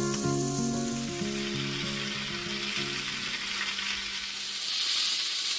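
Marinated chicken pieces shallow-frying in hot oil in a pan, sizzling steadily as a spatula turns them. The sizzle swells a little near the end. Background music fades out over the first three seconds.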